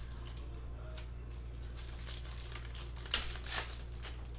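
Trading-card pack wrapper crinkling and tearing as the pack is ripped open by hand, with a few louder crackles about three seconds in.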